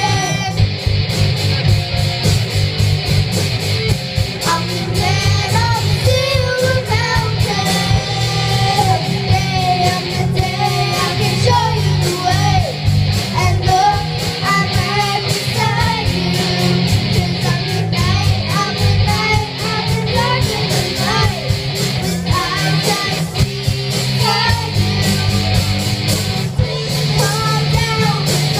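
Live rock band playing through a stage PA: a singer over guitar, bass and drums.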